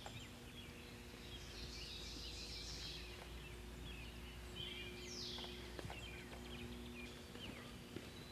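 Woodland ambience with songbirds singing, including a high falling call that comes twice about five seconds apart, over a faint steady low hum.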